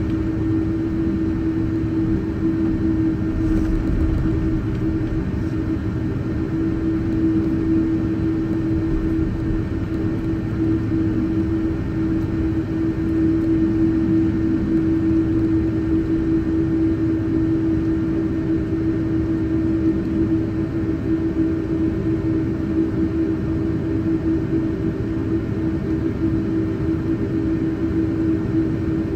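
Airliner cabin noise during taxi: a steady rumble of the jet engines at low thrust and the cabin air, with one constant hum-like tone. It holds an even level with no spool-up.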